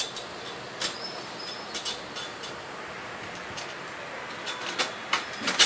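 Scattered light metallic clinks and taps as a pin or bolt is fitted into the stainless-steel tube frame of a pipe salon chair, with a few louder clinks near the end. A steady hiss runs underneath.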